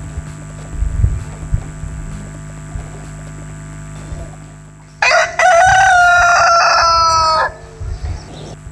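A rooster crowing once, a loud call of about two and a half seconds starting about five seconds in, played as a sound effect through the stage's PA speakers. Low thuds and a steady mains hum sit under it before and after.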